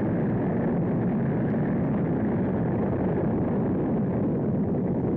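Atlas-Centaur rocket lifting off: the steady, dense noise of its engines at launch, with no breaks or changes in level.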